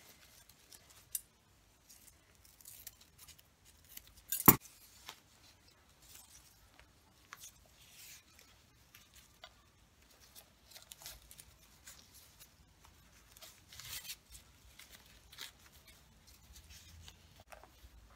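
Faint, scattered rustling and ticking of satin ribbon and fabric being handled while a bow is tied around the end of a bolster cushion, with one sharp click about four and a half seconds in.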